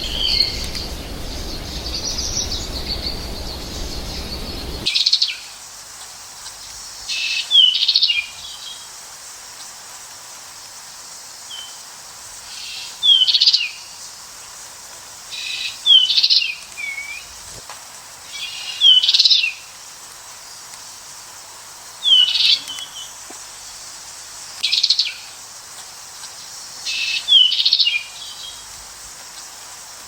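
American goldfinch calling: short, high chirping phrases with quick swooping notes, repeated about every two to three seconds. For the first five seconds a louder background hiss lies under the calls, then stops abruptly.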